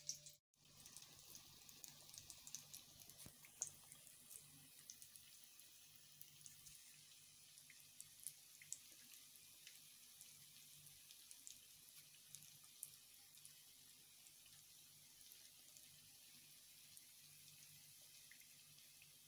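Very quiet: faint, wet ticking and squishing of hands mixing mashed potato in a bowl, over a low steady hum.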